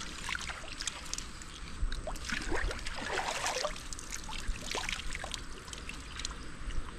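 Water splashing and trickling in irregular bursts, busiest from about two to four seconds in, with scattered small clicks.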